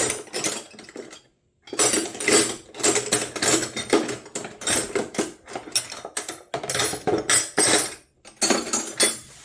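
Steel wrenches clinking and clattering against each other as they are pulled from and set into the slots of a magnetic wrench holder, in a quick irregular run of metallic clicks with a couple of brief pauses.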